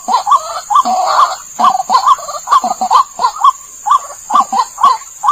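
White-breasted waterhen (ruak-ruak) calling: a loud, rapid string of short rising-and-falling notes, about three a second, used as a lure call.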